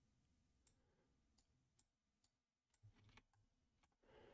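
Near silence with several faint, irregular computer mouse clicks as the 3D design software is worked, and a soft, brief sound near the end.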